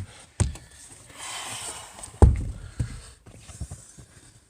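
Knocks and clunks from handling the van's rear door and its latch, with a brief scraping rustle about a second in and the loudest clunk a little after two seconds, followed by a few lighter taps.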